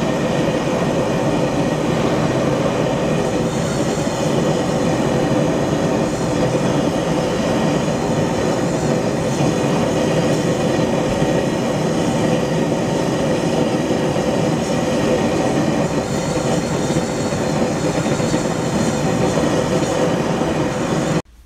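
Red-hot steel axe head quenched in a pan of oil for hardening: the oil sizzles and bubbles around the hot blade in a loud, steady hiss. The sound cuts off suddenly near the end.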